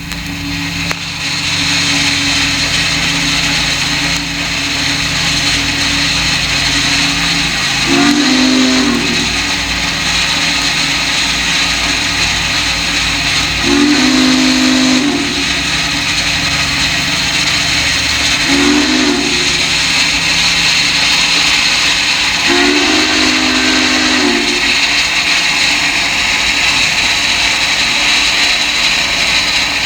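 Whistle of the Duluth, Missabe & Iron Range Yellowstone No. 225, a 2-8-8-4 articulated steam locomotive, blown four times in a long, long, short, long pattern: the grade-crossing signal. Under the whistle, the locomotive's passing makes a steady loud hiss and rumble.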